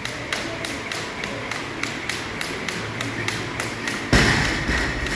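Jump rope slapping the floor in a steady rhythm, about three to four strikes a second, with one heavy thud about four seconds in.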